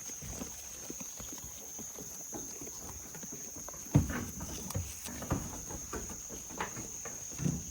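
Goats scuffling over cut grass: one sharp knock about four seconds in, followed by a run of lighter knocks and rustles. A steady high insect drone runs underneath.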